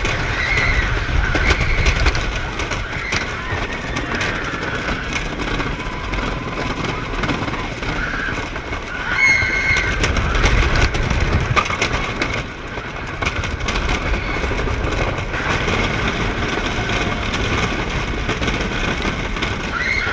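Roller coaster train running along its track, with a steady rumble and wind rushing over the on-ride camera's microphone. Brief riders' shouts come through now and then.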